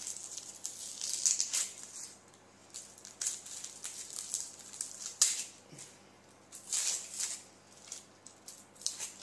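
Dry, papery onion skin crackling and rustling as it is peeled off an onion with a small paring knife, in short irregular bursts.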